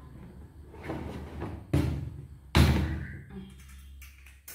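Wire hamster cage top being unclipped and pulled off its plastic base: two sharp clacks a little under a second apart as the clips snap loose, then lighter knocks as the wire top is lifted.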